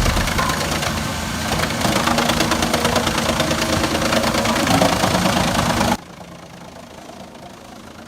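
Heavy machine's engine running loudly with a rapid rattling. About six seconds in it cuts off abruptly, leaving a much quieter engine running.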